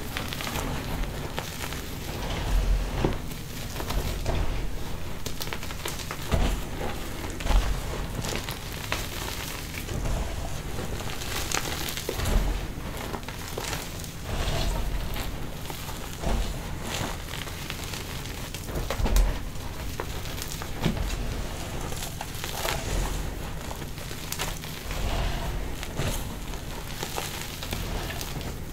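Gloved hands squeezing and crumbling handfuls of crushed pasted gym chalk. The chunks crunch and crackle irregularly as they break and fall back onto the pile, with dull low thumps now and then.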